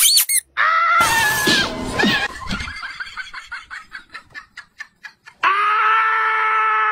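Edited-in cartoon-style comedy sound effects: quick whistling glides at the start, a short cry-like sound, a run of fast clicks that slow and fade, then a long steady horn-like note that wobbles as it ends.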